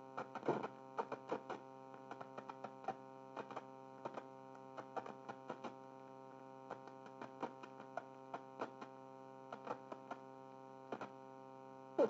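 Steady low buzz with a stack of overtones and scattered soft clicks, from the coarse, low-fidelity soundtrack of an old film played back through a TRS-80 Model I.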